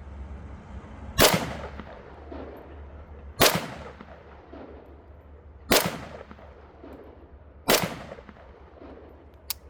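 AKM-pattern rifle in 7.62×39mm fired in four single aimed shots about two seconds apart, each crack followed by a fading echo. A quieter sharp click comes near the end.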